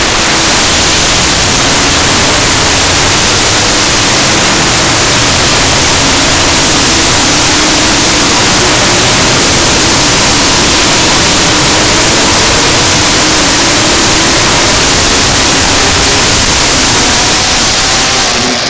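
Racing motorcycles running at speed on the circuit: a loud, even roar of noise with faint engine notes gliding up and down beneath it.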